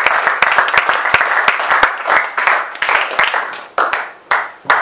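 Small audience applauding at the end of a talk. Dense clapping thins out about three and a half seconds in, leaving a few last separate claps.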